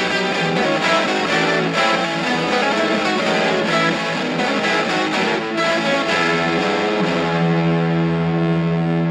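Electric guitar (a Supro/Valco) played through a germanium fuzz pedal, the Good Fuzzy Sounds 2.Bad Fuzz, into a Davoli Studio 60 amp: a quick run of thick, distorted notes, then one note held and sustained from about seven seconds in.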